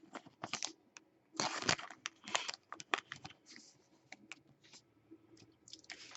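Trading cards and their packaging being handled: irregular dry clicks, slides and rustles of card stock, with a few longer scraping rustles about a second and a half and two and a half seconds in.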